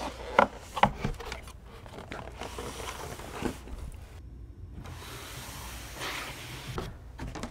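Large cardboard drone box being handled and opened: a couple of sharp knocks in the first second, then the flap and box sides rubbing and sliding.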